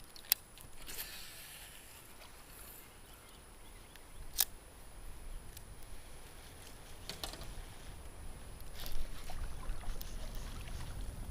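Kayak on moving river water: faint water sound, with a few sharp knocks against the hull, the loudest about four seconds in.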